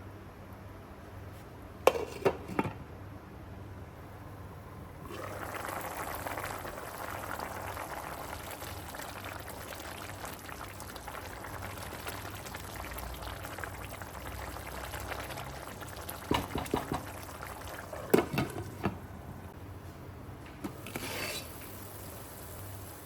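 Liquid pouring steadily for about fourteen seconds, starting abruptly. A few short knocks come before it and near its end.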